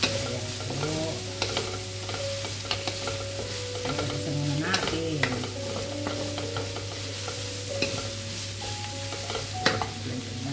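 Pork and vegetables stir-frying in a pan: steady sizzling, broken by frequent scrapes and clicks of a cooking utensil against the pan as the food is stirred.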